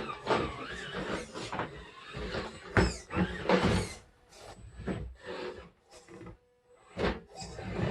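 Small electric RC crawler truck driving in short start-stop spurts, its motor whirring up and down in pitch, with a few sharp knocks as it climbs over the course.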